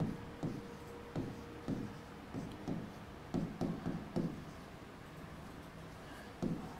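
Pen writing on the screen of an interactive whiteboard: a string of soft, irregular taps and short strokes as letters are formed. A faint steady hum sits under the first two seconds.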